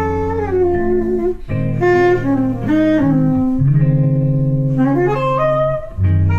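Saxophone playing a slow jazz melody with notes that slide and bend, over guitar chords that change every couple of seconds.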